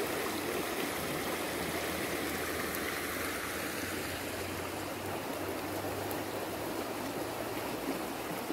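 Shallow, muddy river flowing fast over a stony bed: a steady, even rush of running water.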